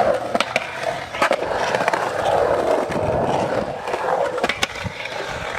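Skateboard rolling on pavement, its wheels giving a steady rolling rumble with sharp clicks at irregular intervals as they pass over cracks or joints.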